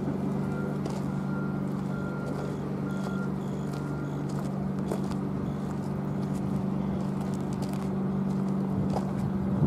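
Diesel locomotive engine running in a steady low drone. A faint higher tone repeats about every 0.7 seconds over the first four seconds, with scattered light clicks throughout.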